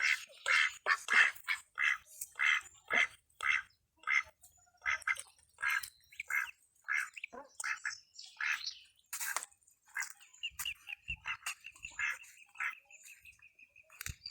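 A duck quacking over and over, about two short quacks a second, with a quick run of high, evenly spaced peeps in the later part.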